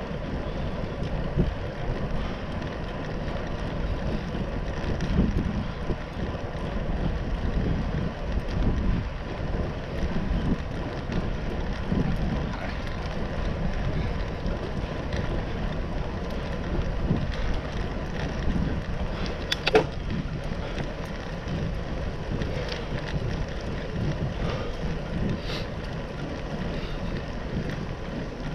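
Wind noise buffeting the microphone of a GoPro on a moving bicycle, a steady low rush as the bike rolls along a paved trail, with one sharp click about two-thirds of the way through.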